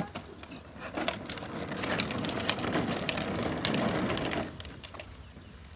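Hard plastic wheels of a child's pedal ride-on tractor rolling over wet, gritty asphalt: a crunching rattle full of small clicks that grows and then fades about four and a half seconds in.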